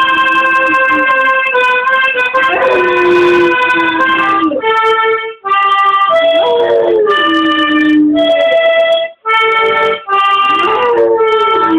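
A weimaraner howling along to held chords played on a reed instrument. Each howl slides down in pitch and then holds, several times over, and the chords break off briefly twice.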